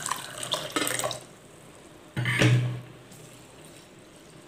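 Water pouring from a steel jug into a glass bowl of soaking rice and urad dal, tailing off about a second in. A short dull knock follows about two seconds in.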